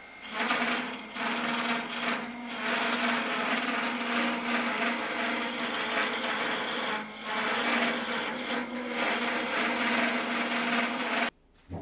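A flat turning chisel cutting a long, thin wooden spindle on a wood lathe: a continuous loud rasping scrape of shavings being peeled, with a steady low hum under it. It eases off briefly twice and stops abruptly near the end. The thin spindle vibrates under the cut, the chatter that makes such work too slow.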